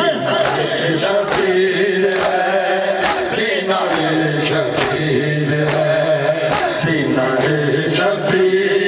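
Noha recitation: a male reciter chanting a lament through a microphone, with mourners' voices joining in and a steady rhythm of chest-beating (matam) slaps.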